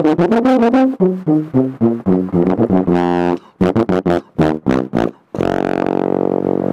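Tuba played solo: a quick run of short, detached notes with a brief break in the middle, then one long held note starting about two thirds of the way in.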